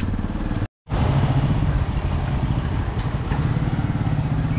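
A small motor vehicle's engine running steadily, with road noise. It cuts out completely for a moment just under a second in, then comes back running a little higher in pitch.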